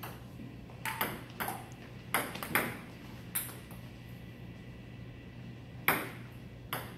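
Table tennis ball clicking off the paddles and bouncing on the JOOLA table in a quick rally of about half a dozen hits. After a pause of about two seconds, a new serve and return come near the end. A steady low hum sits underneath.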